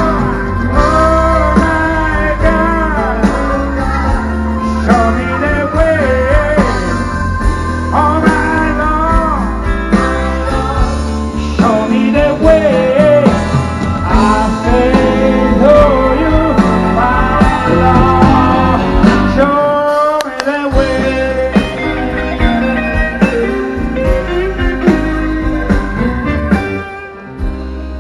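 Live blues band playing an instrumental break over a steady bass, with a lead instrument bending notes up and down, amplified through a large outdoor PA. The bass drops out briefly about two thirds of the way through.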